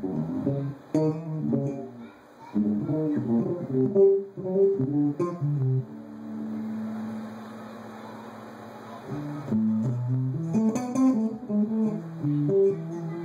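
Electric bass guitar played through a 12-inch bass cabinet fitted with an RCF 12G301 ceramic-magnet woofer, with a warm tone. A run of plucked notes, then one note held for about three seconds near the middle, then more notes.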